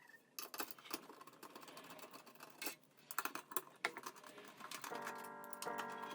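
Irregular light clicks and rustles of parts being handled, then background music comes in near the end.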